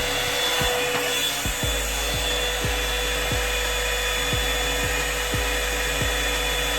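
Hand-held hair dryer running steadily on a wig, a constant blowing rush with a whining motor tone. A low bass thump beats underneath about twice a second.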